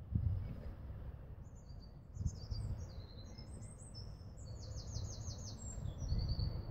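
A songbird singing a long, high, rapid twittering song made of several trilled phrases, starting about a second and a half in, over a low rumble of wind gusting on the microphone.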